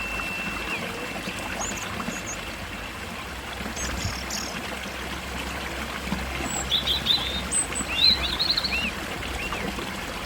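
Water trickling steadily in a stream, with birds chirping over it in short high notes, more of them in the second half.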